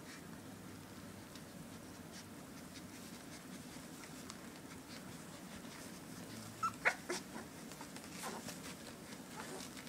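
Nursing 17-day-old puppies giving short squeaks and whimpers, with a couple of louder squeaks about seven seconds in, over a faint steady low hum.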